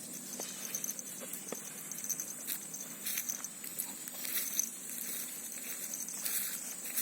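Outdoor ambience of insects: a steady high, thin drone with a pulsing chirr just beneath it, with scattered light clicks and rustles.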